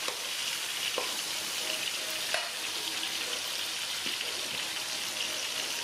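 Horse mackerel sizzling as it fries in hot oil: a steady hiss with a few light clicks.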